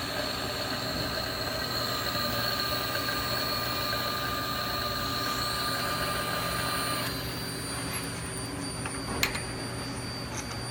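Steady machine-shop machinery running, a hum with several steady whining tones that cut off about seven seconds in, while a higher whine comes in shortly before and holds; a single click about nine seconds in.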